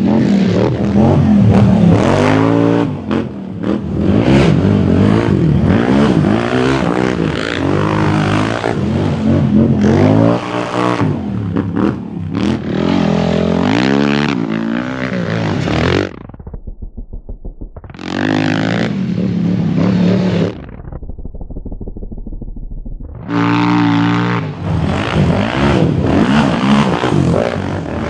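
Yamaha Raptor 700's single-cylinder four-stroke engine revving hard, its pitch climbing and falling again and again under throttle and shifts. Twice, a little past halfway and again later, it drops off the throttle to a lower, even putter before pulling hard again.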